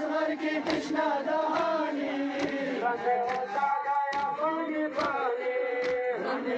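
Men's voices chanting a Muharram noha (mourning lament) together, with a sharp slap about once a second from mourners striking their chests in matam.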